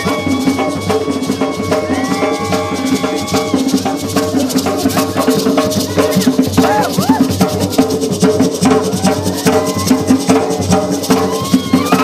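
Gwoka music: ka hand drums with goatskin heads beaten in a fast, steady rhythm, with voices singing long held notes over the drumming.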